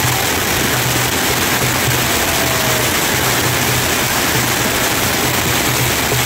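Ground firework fountains spraying sparks with a steady, loud hiss.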